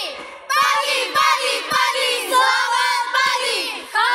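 A group of girl scouts chanting and singing their patrol cheer (yel-yel) together in short, shouted phrases, with a brief break shortly after the start and another near the end.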